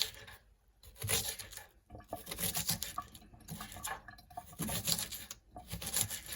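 Knife cutting through a red onion on a cutting board: several rasping strokes with short pauses between them.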